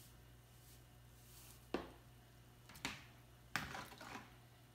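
Faint hiss of salt poured from a plastic shaker into a plastic bowl of water, then three sharp clicks and knocks about a second apart as the shaker is set down and a spoon goes into the bowl to stir.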